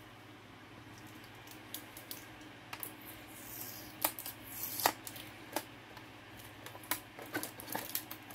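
Small motorized display turntable running with a low steady hum, under scattered light clicks and ticks, the sharpest two about four and five seconds in, with a couple of brief soft swishes among them.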